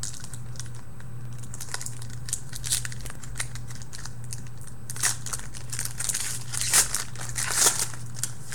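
A trading-card pack's wrapper being torn open and crinkled, with scattered light clicks of cards being handled. The crinkling grows louder in the second half, loudest twice near the end.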